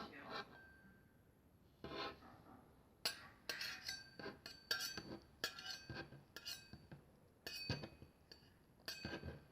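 A string of light, irregular clinks and knocks of small hard objects, many of them ringing briefly.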